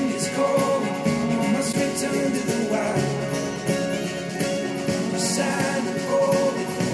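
A song played back over loudspeakers and picked up by room microphones: first through a pair of iLoud MTM active studio monitors, then, partway through, through Elac Debut Reference DBR62 bookshelf speakers driven by a Denon PMA-600NE amplifier.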